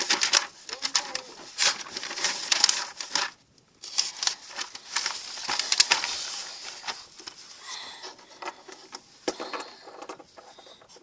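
A pen or marker drawing on a surface: quick scratchy strokes and light taps, with a short pause about three and a half seconds in.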